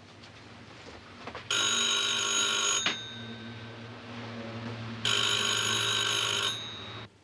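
Rotary desk telephone's electromechanical bell ringing twice, two rings of just over a second each, about two seconds apart.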